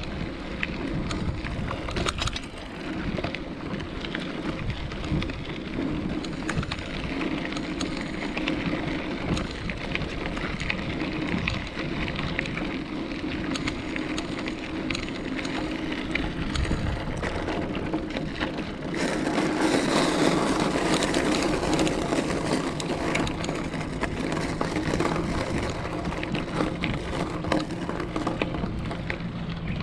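Bicycle riding noise heard from a chest-mounted camera: tyres rolling over the path, with frequent small rattles and knocks from the bike and a low rumble. A louder hiss sets in about two-thirds of the way through.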